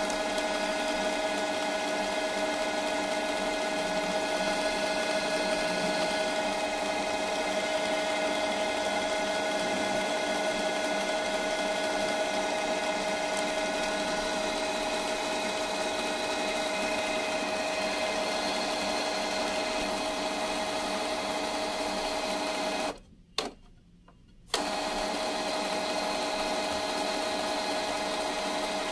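Canon G3010 printer running its ink-charge cycle, the pump drawing ink through the empty supply tubes: a steady motor hum with several held whining tones. It cuts out for about a second and a half near the end, with a click on either side.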